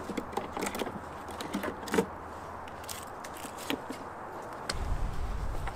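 Wooden hive frames being handled in an empty wooden brood box: a sharp click, then a string of light clicks and knocks, with a few more later. A low rumble comes in near the end.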